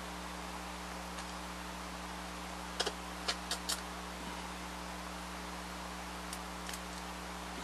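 Light sharp clicks and taps on a small glass jar while latex is tinted with acrylic paint: a quick cluster of about five about three seconds in, and two or three fainter ones past six seconds, over a steady electrical hum.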